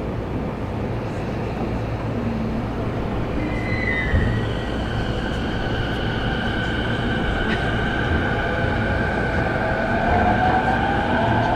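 Toei 10-300 series subway train heard from inside the car: a steady rumble of wheels and track, with steady high electric tones from about four seconds in. Over the last few seconds the motor whine rises in pitch, as the train gathers speed.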